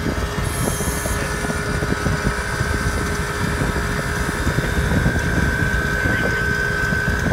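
Air-cooled refrigeration condensing unit running: compressor hum and condenser fan air rushing past the microphone, with a steady high whine that grows louder about five seconds in. The system is running low on R-422B refrigerant while being charged.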